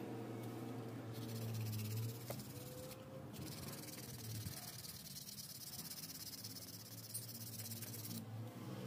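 Sandpaper rubbed rapidly back and forth over the tip of a keris carved from popsicle-stick wood: a steady high hiss with a short break about three seconds in. A low steady hum runs underneath.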